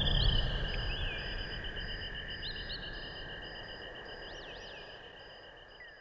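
Rainforest ambience made entirely with synthesizers, no recordings: steady insect-like trills and pulsing high tones with a few bird-like chirps that rise and fall, over a low rumble, the whole fading out steadily.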